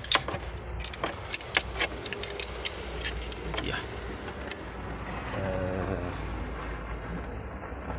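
Light metallic clicks, irregularly spaced, from a small spanner working the bolt on the camshaft locking tool of an EP6 engine, lasting about four seconds. A steady low rumble runs underneath and swells a little about five seconds in.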